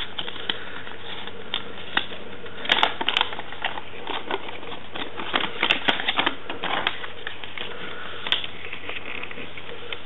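A folded paper instruction leaflet being unfolded and smoothed out by hand: irregular crinkles and crackles, coming in clusters.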